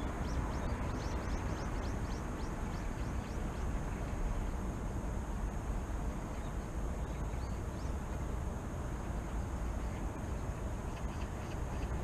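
Small birds chirping in quick runs of short, high, falling notes, busiest in the first few seconds, with a few more midway and near the end, over a steady low rumble of city traffic.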